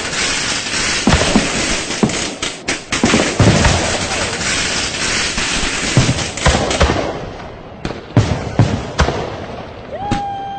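Firecrackers and fireworks going off in a dense string of sharp bangs and crackling, thinning to scattered bangs after about seven seconds. Near the end a steady horn-like tone sounds briefly.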